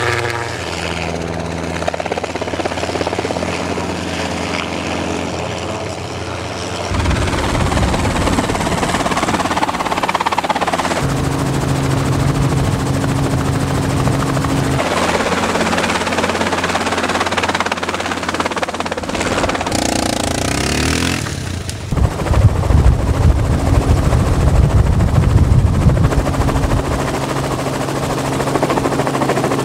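Helicopter rotor and turbine noise heard from aboard a helicopter: a steady low hum with a rough, beating chop. It changes abruptly several times in level and tone.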